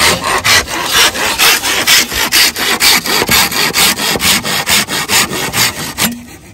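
Z-saw Japanese pull saw cutting through a thick green bamboo culm, a steady rasping stroke about twice a second; the sawing stops about six seconds in.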